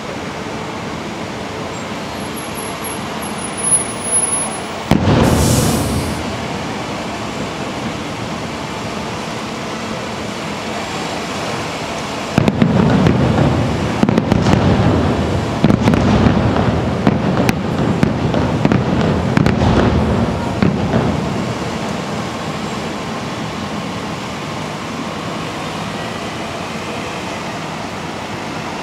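Fireworks going off: two single booms a few seconds in, then a dense run of rapid bangs and crackles for about nine seconds midway, over a steady background hum.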